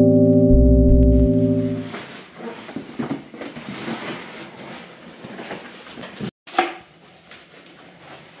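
Intro music, a held electronic chord over a deep bass, ending about two seconds in. Then rustling plastic wrapping and light knocks as bar stool parts are handled, with one sharper knock about six and a half seconds in.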